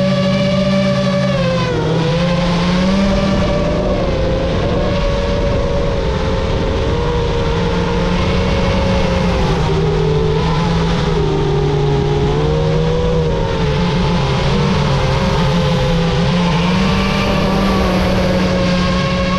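FPV quadcopter's motors and propellers whining steadily, the pitch dipping and rising with the throttle, with a sharp dip about two seconds in.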